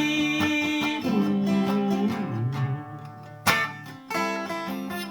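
Acoustic guitar music in a break between the sung lines of a song: sustained strummed chords, with a moving lower melody line and a sharp strum about three and a half seconds in.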